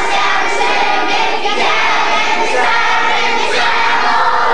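A large group of children singing together loudly as a choir.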